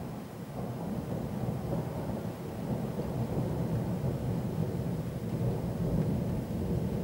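Rolling thunder from a supercell thunderstorm: a long low rumble that builds about a second in and swells to its loudest near the end.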